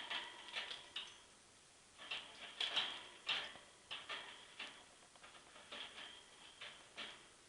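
Budgie clambering on its wire cage, claws and beak making a run of irregular clicks and taps in clusters.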